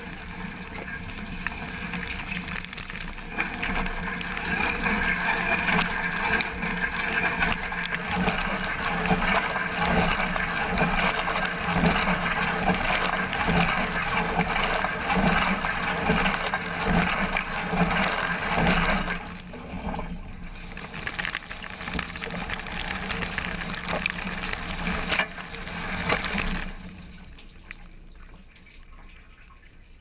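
Water spraying inside a Thermador Emerald DWHD440MFM dishwasher tub during a wash cycle, jets hitting the racks and dishes over the steady low hum of the wash pump. The spray dips briefly about two-thirds of the way through, then stops a few seconds before the end, leaving faint dripping.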